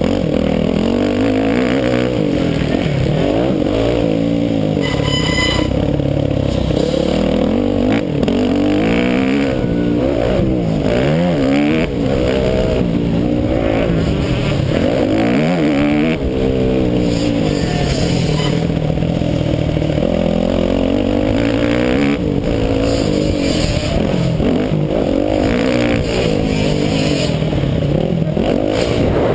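Motocross bike engine revving hard, its pitch rising and falling again and again as the rider accelerates, shifts and backs off through the track's corners and bumps, heard close up from an onboard camera.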